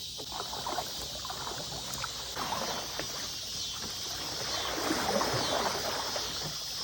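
Water splashing and sloshing in irregular small bursts around a swamped, flipped boat being worked out of the water, over a steady high drone of insects.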